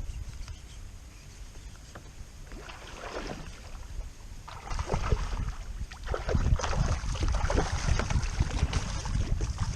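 Water splashing and sloshing around a kayak, with wind on the microphone and small knocks, getting louder about halfway through.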